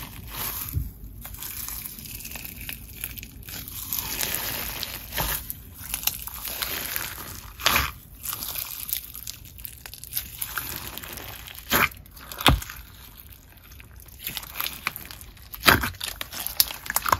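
Thick clear slime mixed with fishbowl beads, Bingsu beads and glitter being squeezed and kneaded by hand, giving a steady crunchy crackle and squelch. About half a dozen sharp pops stand out at irregular moments.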